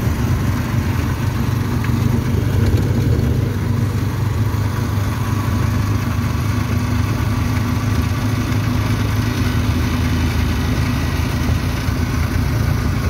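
Motorcycle engine of a motorcycle-and-sidecar tricycle running steadily as it drives, with road and wind noise, heard from inside the sidecar.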